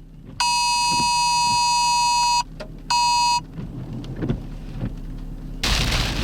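An electronic alert beep, a steady buzzing tone, sounds for about two seconds and then once more briefly. About five and a half seconds in, heavy rain suddenly starts pelting down.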